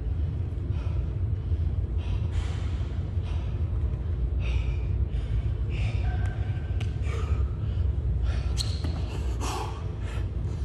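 A man breathing hard, with rough gasps and exhales every second or two, while doing burpees. Under it runs a steady low rumble of room noise.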